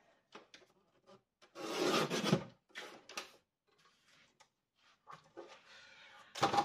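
Paper and craft supplies being handled: a long rustling slide of sheets about two seconds in, then shorter rubs and knocks, the sharpest just before the end.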